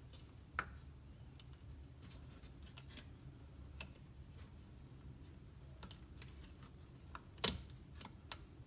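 Faint, scattered small clicks and taps of plastic being handled: the BMW i3's high-voltage disconnect connector being worked back down into place by hand and with a screwdriver, the sharpest click about seven and a half seconds in.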